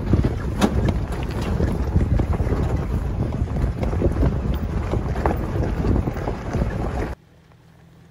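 Heavy wind buffeting on the microphone of a truck driving a dirt trail, with scattered knocks and clicks. About seven seconds in it cuts off suddenly to a faint, low, steady engine hum.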